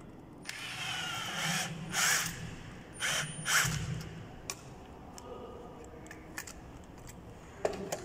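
Cordless drill-driver running in short bursts as it drives the fixing screws of a twin wall socket's faceplate into its back box. One longer run starts about half a second in, shorter bursts follow around 2 and 3 seconds, and it stops about 4 seconds in, leaving a few light clicks.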